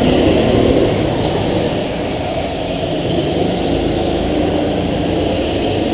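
Go-kart engines running in an indoor karting hall: a loud, steady drone, a little louder in the first second.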